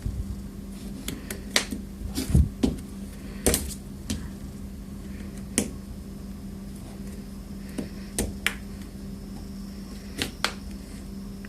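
Plastic clips of an HTC One M8's housing clicking and snapping as it is pried open with a plastic spudger: about a dozen irregular sharp clicks, bunched in the first four seconds and a few more later, over a steady low hum.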